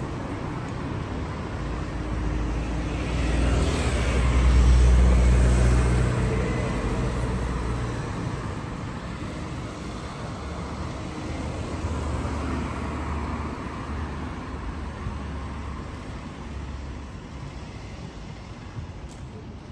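City street traffic noise, with a motor vehicle's engine passing close by, growing louder about three seconds in and fading away by about eight seconds. A second, fainter vehicle pass comes a few seconds later.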